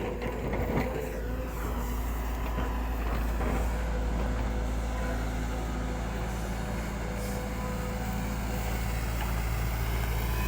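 Diesel engine of a road-cutting construction machine running steadily, a low, even rumble with a steady hum above it.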